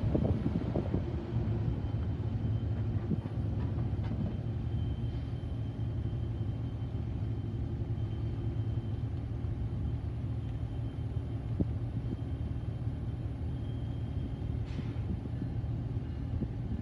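Diesel engine of a GE AC45CCTE (GEVO) locomotive running with a steady low rumble.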